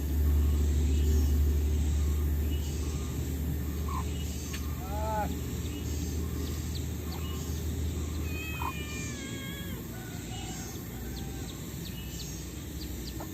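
Short animal calls: a rising-and-falling call about five seconds in and wavering calls a few seconds later, over a steady low rumble that fades out partway through.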